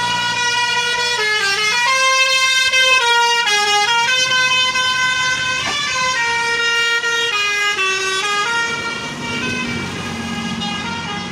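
Bus telolet horn, a multi-trumpet musical air horn, playing a melody: several notes sound together and step up and down in pitch as a tune. The tune thins out about nine seconds in.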